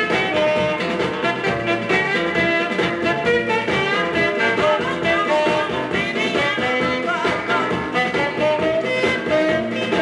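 An early-1960s vocal-group rock and roll song playing from a vinyl 45 rpm single on a turntable, with a full band behind it.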